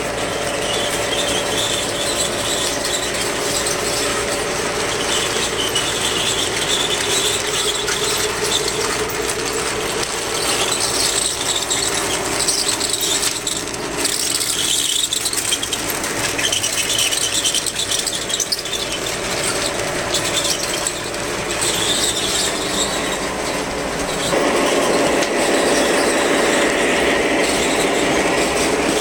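O gauge model train running on its track: a steady motor hum under a rapid clatter of wheels over the rail joints, with high squealing coming and going as the cars take the curves. It gets louder near the end.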